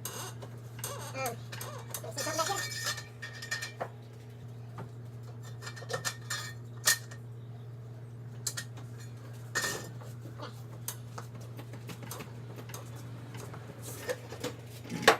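Metal tools and parts clinking and clanking in irregular, scattered knocks, the loudest near the end, over a steady electrical hum.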